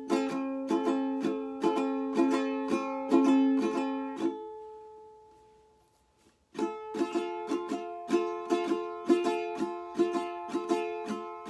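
Ukulele strummed in a steady rhythmic pattern. About four seconds in, the strumming stops and one chord rings and fades away. Then, about six and a half seconds in, the strumming starts again on a different chord.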